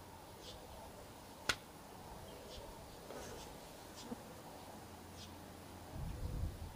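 Quiet outdoor background with faint bird chirps every second or so, one sharp click about a second and a half in, and a low rumble near the end. At the very end, the sharp crack of the first shot from a .22 Hatsan Sortie PCP air pistol.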